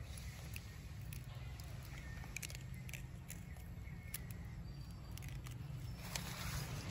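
A macaque crunching a block of dry instant noodles: a run of short sharp crackling snaps as it bites and chews, over a steady low hum. A louder rustling hiss comes in near the end.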